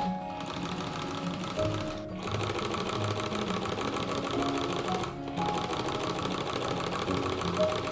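Belt-driven antique sewing machine running at speed and stitching with a fast, even rattle, under background music. The sound breaks off briefly twice.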